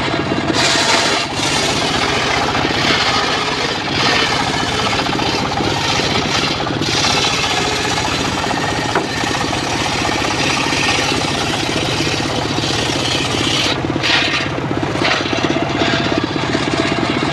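Engine-driven mobile circular saw running steadily while its blade rips a teak log, the high hiss of the cut rising and falling in stretches over the engine's drone.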